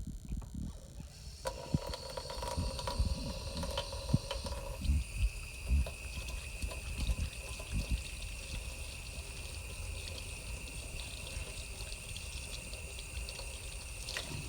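Tap water running onto a makeup sponge that is being rinsed and squeezed, starting about a second in. The tone of the flow changes about five seconds in, and soft handling knocks run underneath.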